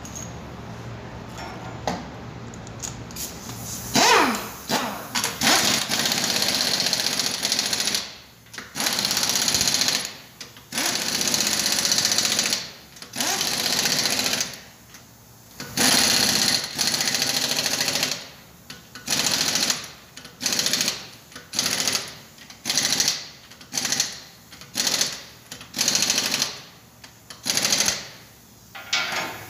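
Pneumatic impact wrench hammering the lug nuts tight on a car's rear wheel. It starts about four seconds in with several runs lasting a few seconds each, then gives a string of short bursts about once a second as each nut is snugged down.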